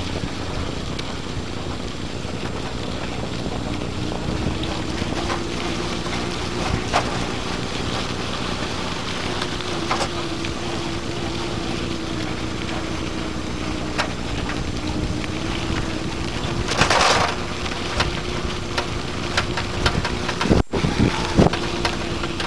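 Homemade electric mountain bike running under its 24 V electric drive: a steady motor whine that wavers slightly in pitch as speed changes, over tyre noise, rattles and wind on the microphone. A short hiss comes about three-quarters of the way through.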